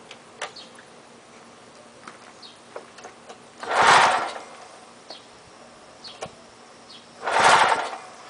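Lawn-Boy mower's recoil starter pulled twice, a few seconds apart: each pull a short whirring rush as the rope spins the engine over, which does not fire. The owner suspects the spark plug, a new but wrong-type plug that is barely firing.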